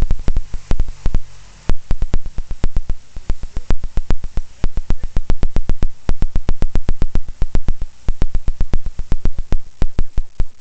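Morris Cowley's four-cylinder engine running on its first start-up after a full rebuild, with a loud, even beat of exhaust pulses. At first the pulses come thick over a low hum. About a second and a half in they dip briefly, then settle into a steady beat of about six a second.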